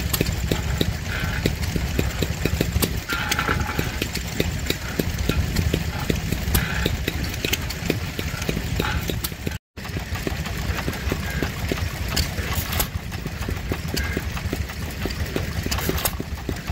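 Vintage stationary engine driving an old cement mixer, running with a steady, regular beat. After a brief cut about ten seconds in, a 1914 1.5 hp Pilter/Stover Type K engine coupled to a paint mill runs with a similar steady beat.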